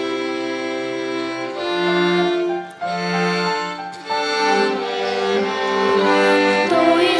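Children's violin ensemble playing a slow melody in sustained, overlapping bowed notes: the instrumental introduction to a hymn.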